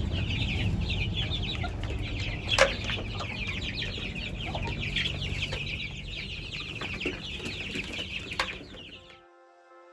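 A crowd of young chicks peeping continuously, many short falling cheeps overlapping, with a low rumble underneath and a sharp knock about two and a half seconds in. The sound cuts off suddenly near the end.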